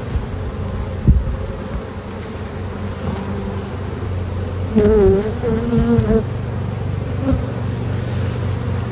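Honeybees buzzing steadily around an opened hive. A single bee's buzz wavers in pitch and grows louder, close by, about five seconds in. There is a sharp click about a second in.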